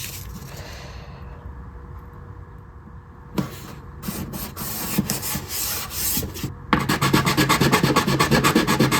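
Sandpaper rubbing back and forth on a plastic guitar bridge. It is faint and sparse at first, then turns into rapid, steady strokes about two-thirds of the way through.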